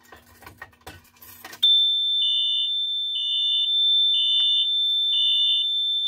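A few clicks as a fire alarm pull station is operated. About 1.7 s in, two fire alarm horn strobes sound at once: one gives a steady, high piezo tone (continuous mode), the other pulses in the temporal code-3 pattern of three half-second beeps a second apart, then a pause.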